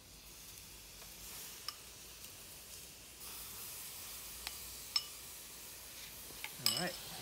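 Marinade-topped cockles in their half shells sizzling on a wire rack over hot charcoal as basting marinade is spooned onto them: a steady hiss that grows louder about three seconds in, with a few sharp ticks.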